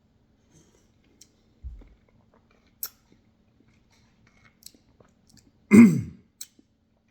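Mouth noises of a man tasting a spoonful of Reaper-pepper hot sauce: scattered small wet clicks and a soft low thump, then, about six seconds in, one short throaty vocal sound that falls in pitch.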